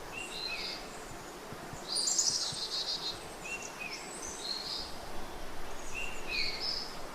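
Small songbirds calling: short two-part chirps recurring every couple of seconds and a high, rapid trilled phrase about two seconds in, over a steady background hiss.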